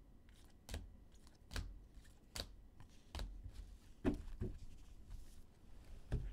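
Rigid plastic toploaders holding trading cards clacking as they are set down one at a time on a stack, a little under one a second. Then the stack of toploaders is knocked upright on the tabletop twice, a little after four seconds in, with one more knock near the end.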